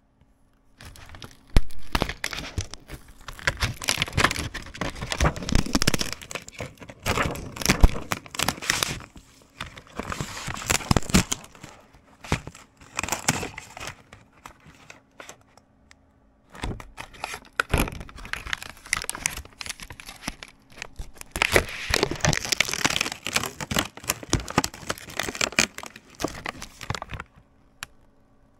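Thin plastic membrane sheets of a laptop keyboard being peeled apart and handled, giving irregular crinkling and tearing, with a short lull about halfway through.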